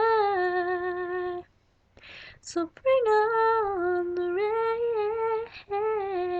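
A woman singing unaccompanied, holding long wordless notes in phrases, with a short pause and an audible breath about two seconds in.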